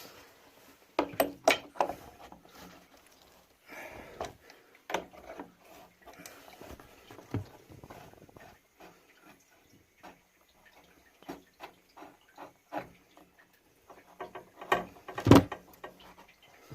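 Irregular clicks and knocks of tools and metal tap parts being handled while a tap is taken apart and changed, with the loudest knocks about a second in and again near the end.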